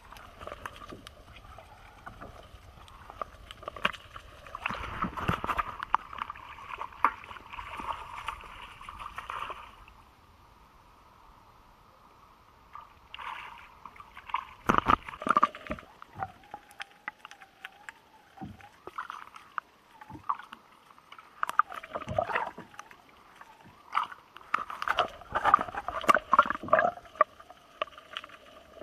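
Water sloshing and splashing around a kayak, with many sharp knocks and clicks against the hull. A steady hiss with a low rumble fills the first third, then there is a brief lull, and the knocks cluster again near the end.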